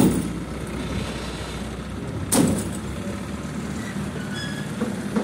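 Crane engine running steadily, with two sharp metallic clanks, one at the start and one about two seconds in, from the lifting chain and hook knocking against the stacked steel rails.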